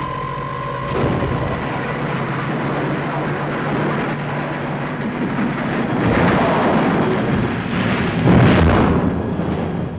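Film sound effects of a shot-down warplane going down: a continuous heavy rumble that swells about six seconds in, with a loud crash-like burst about eight seconds in as it hits the ground.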